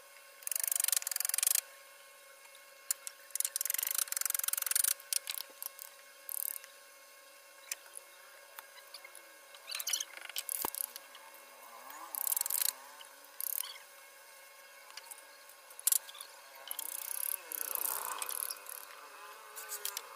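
Steel chisel pushed by hand through wood, paring curls for a carved scroll: a series of irregular, short scraping cuts, with one sharp click about halfway through.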